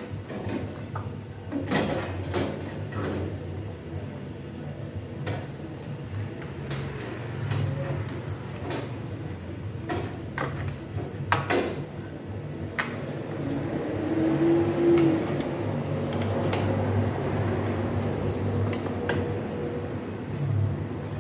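Parts of a front-loading washer-dryer being handled and fitted during reassembly: scattered clicks and knocks at irregular intervals over a steady low hum.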